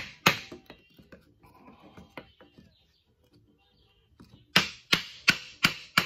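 Hammer blows on a wooden stake braced against the axle flange, driving a Ford 7.25-inch rear axle shaft out of its housing. Two sharp knocks at the start and a few light taps, then about four and a half seconds in a steady run of blows, about three a second.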